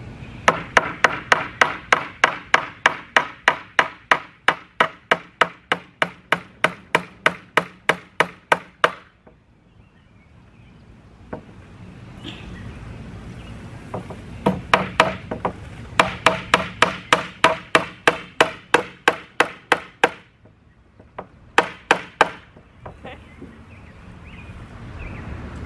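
Steel hammer driving 2-inch finishing nails into a wooden board, in quick even blows about four a second, each with a short metallic ring. Two long runs of blows, then a brief burst of a few more, with pauses between them.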